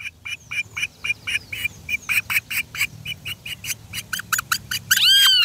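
Great kiskadee nestling calling in a rapid series of short, high peeps, about four or five a second, ending with a louder, drawn-out squawk that rises and falls in pitch.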